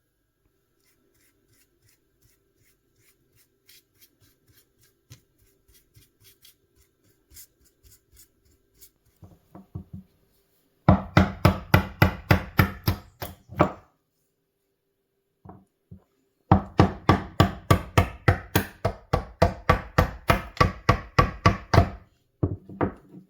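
Hand tool worked in quick rhythmic strokes on wood, about four strokes a second, in two runs with a short pause between them, after a stretch of faint light scraping.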